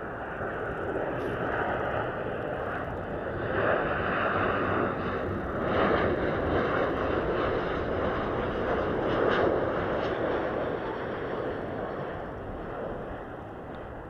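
Jet engines of a Boeing 737 airliner on landing approach, passing overhead: a broad engine noise that grows louder over the first few seconds, holds through the middle and fades near the end.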